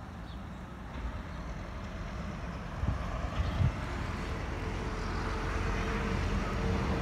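Road traffic running steadily and growing louder, with a faint steady engine tone in the second half. A few low thumps come about three seconds in.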